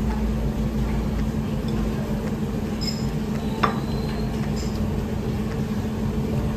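Restaurant dining-room background: a steady low hum with a few light clinks of dishes, the sharpest about three and a half seconds in.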